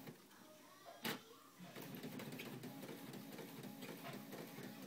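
All-in-one office printer running as it prints, a steady low mechanical whir that starts a little under two seconds in, after a single click about a second in.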